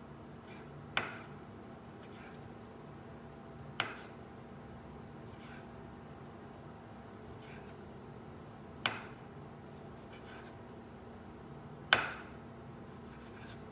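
Kitchen knife slicing raw beef fillet thin on a cutting board: quiet cutting and scraping, broken by four sharp knocks of the blade on the board a few seconds apart, the loudest near the end.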